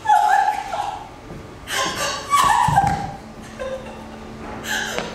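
A person's voice in three short stretches with pauses between.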